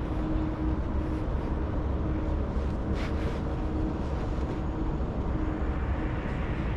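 Outdoor city ambience: a steady low rumble of distant traffic, with a faint wavering hum and a brief sharp click about three seconds in.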